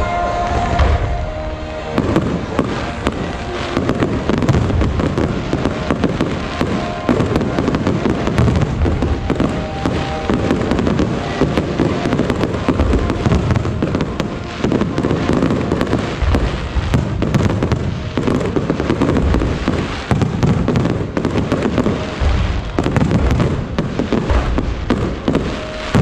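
Aerial fireworks barrage: a dense, continuous run of bangs and crackles overlapping one another, thickening about two seconds in, with music under it.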